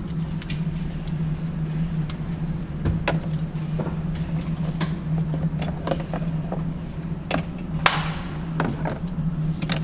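Steady low hum with a scattering of sharp clicks and knocks, the loudest about eight seconds in, from handgun and magazine handling at a shooting lane.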